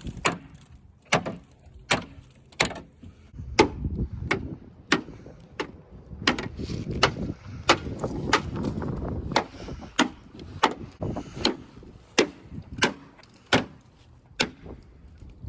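About twenty hard blows, roughly one every two-thirds of a second, struck against a part of a Ford Ranger pickup to knock it off. The part does not come loose.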